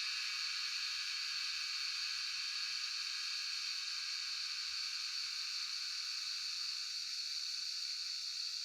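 Cicadas calling in a steady, dense high-pitched buzzing chorus.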